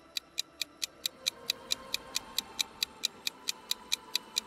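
Quiz countdown-timer sound effect: a steady clock-like ticking, about four to five ticks a second.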